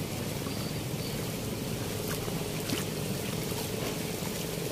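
Water rushing steadily through a weir's sluice gate, a constant low rumble with no break.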